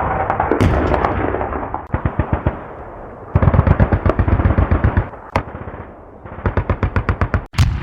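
Automatic gunfire in a city gunfight: a continuous rattle for about two seconds, then repeated bursts of rapid shots with short pauses, a single sharp shot in between, and a louder bang near the end.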